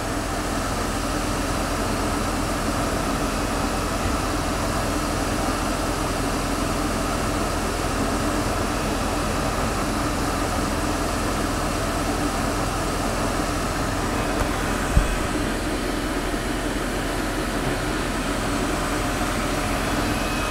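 Tormach CNC lathe running steadily, its spindle turning a hardened steel dowel pin while a cubic boron nitride insert takes a light cut. A single brief thump about fifteen seconds in.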